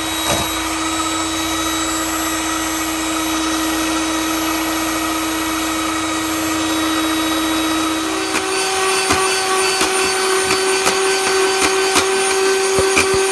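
Electric mixer running steadily while whipping heavy cream into whipped cream. Its pitch steps up about eight seconds in, and irregular light ticks join it from then on.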